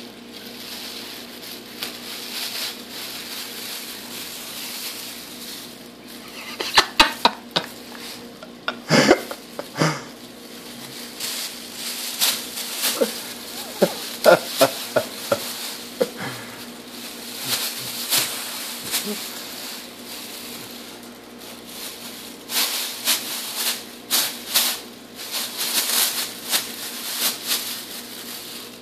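Black plastic bag rustling and crinkling in bursts as a cat tangled in it, with the bag around its neck, moves and pulls against it.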